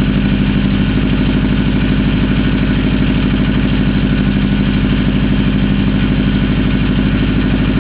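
Freshly rebuilt Ford Mustang engine running steadily at idle, with an even pulse of firing strokes.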